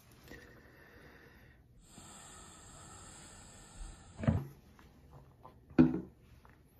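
A man's breath and throat reacting to hot-sauce heat: a long hiss of breath, then two short, loud snorting coughs about a second and a half apart.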